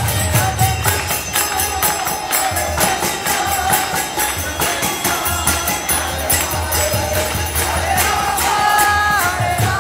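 Kirtan music: a mridanga drum and brass karatala hand cymbals beat a steady, fast rhythm while a harmonium plays and a group chants along. The singing swells near the end.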